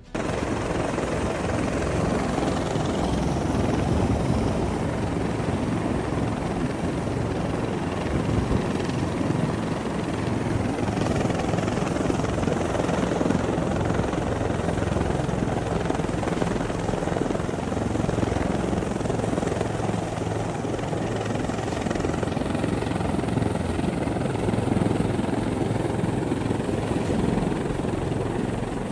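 Rescue helicopter hovering close overhead: its rotor and engine make a steady, loud noise.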